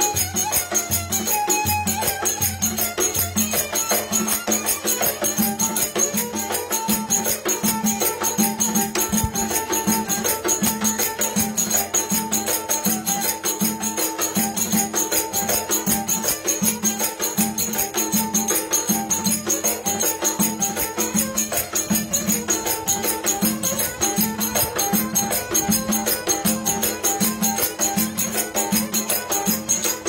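Turkish folk dance music: a kemane, a small bowed fiddle, plays a lively tune over a davul drum beating a steady, even rhythm.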